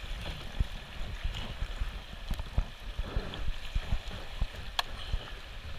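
Fast river water rushing and splashing around a kayak as it is paddled, with frequent low thumps and a sharp click near the end.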